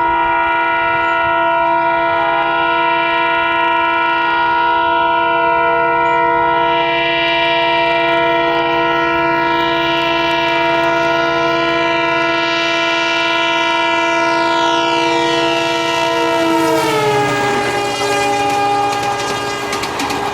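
EMD WDP-4B diesel locomotive's multi-tone horn blown continuously as the train approaches at about 100 km/h. About three-quarters of the way through, the whole chord drops in pitch as the locomotive passes and carries on lower. The rush and clatter of the train's wheels on the rails build near the end.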